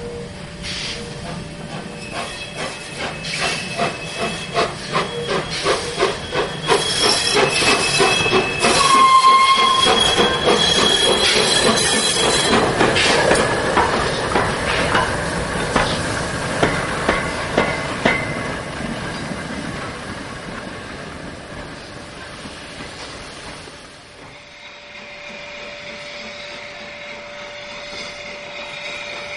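A1 Peppercorn 4-6-2 steam locomotive Tornado pulling away, its exhaust beats coming quicker and closer together with steam hiss, a few thin high tones over them, loudest about ten seconds in as it passes close by. About 24 seconds in the sound drops to a quieter, more distant steady rumble.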